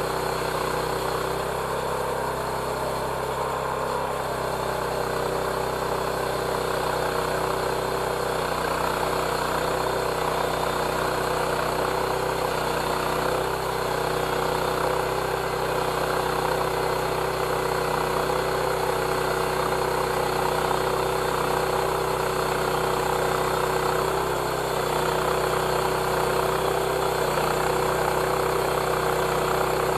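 Homemade band sawmill running steadily, its motor driving the blade through a hemlock log to rip a thick board, with a constant hum and a dense grinding saw noise.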